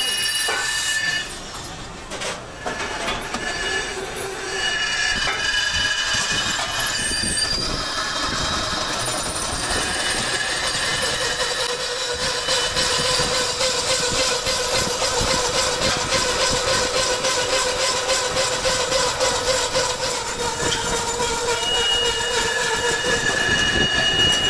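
Lathe boring out a cast pump housing: the spinning cutter bar cuts the metal with several steady, high-pitched squealing tones over a grinding noise. It drops quieter about a second in, then runs evenly from about four seconds in.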